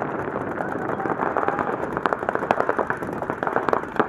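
Paintball markers firing rapid, irregular strings of shots, starting about a second in, over a steady rush of outdoor noise.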